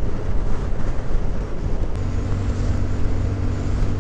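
Motorcycle riding at road speed: engine running under a continuous rush of road noise. About two seconds in, the sound changes to a steadier engine hum with a low, even tone.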